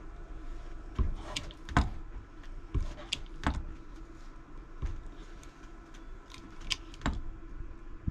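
Cable crimping tool being worked on a heavy battery-cable lug: a string of irregular metallic clicks and knocks, a few sharper ones, as the jaws are closed down on the lug, over a steady low hum.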